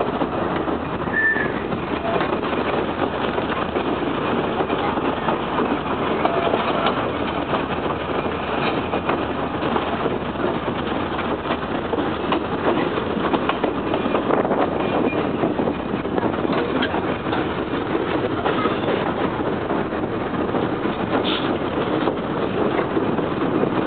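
Mt. Rainier Scenic Railroad train running on the track: a steady, even rumble of the moving train.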